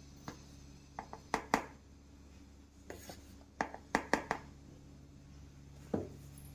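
A spoon clicking and tapping in small clusters of sharp knocks as heaped spoonfuls of gram flour (besan) are scooped and tipped into a glass bowl, over a faint steady low hum.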